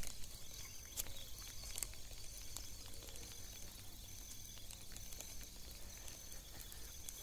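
Outdoor riverbank ambience: insects chirring in steady high tones that break off and resume, over a low steady rumble. A few faint clicks near the start.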